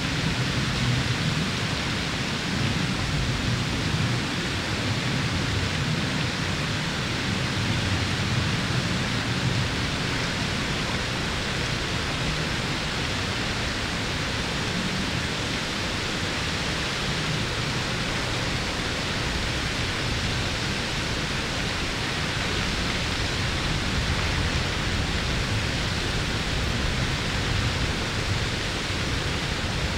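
Tall single-drop waterfall falling down a cliff face, a steady, even rush of water.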